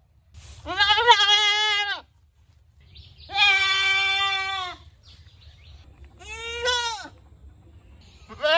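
Goat bleating four times, each call about a second long. The first call quavers in pitch, and the last one begins near the end.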